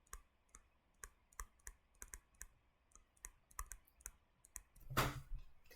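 A run of light, sharp clicks at irregular spacing, about two or three a second, with a brief louder noise about five seconds in.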